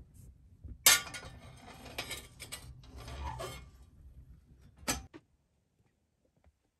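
Metal clanking and scraping of a sheet-steel stove's firebox door being swung shut and fastened, with a sharp clank about a second in, clattering after it, and a second sharp clank near five seconds.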